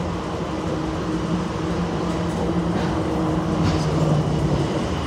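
ATL SkyTrain automated people mover car running, heard from inside: a low steady motor hum over rolling and rumble noise. The hum drops slightly in pitch about three and a half seconds in.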